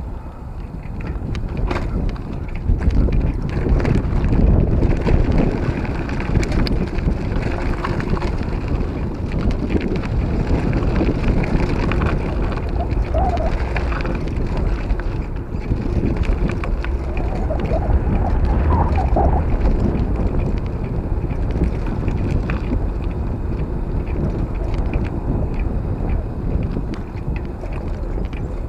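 Wind buffeting the microphone of a camera on a moving bicycle, over the crunch of tyres rolling on a loose gravel track and the bike rattling over bumps.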